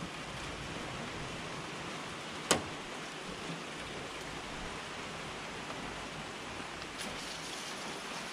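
Steady hiss of falling rain, with one sharp knock about two and a half seconds in and a faint tick near the end.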